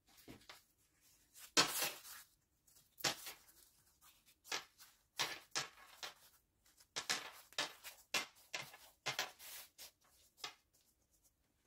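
Thin phyllo pastry sheets rustling and crinkling as they are rolled up by hand, in a dozen or so irregular short bursts.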